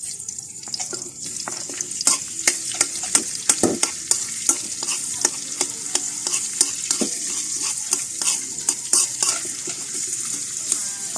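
Food sizzling in a frying pan, a steady hiss, while it is stirred: a utensil knocks and scrapes against the pan in many sharp, irregular clicks.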